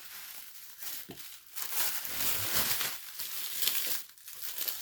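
Packaging crinkling and rustling unevenly as a shipping box is unpacked by hand.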